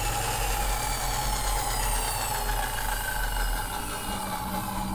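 Steady low mechanical hum with a steady mid-pitched whine over it, unchanging throughout.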